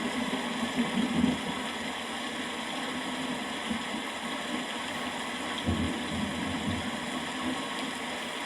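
Steady rain with low rumbles of distant thunder, swelling briefly about a second in and again near six seconds.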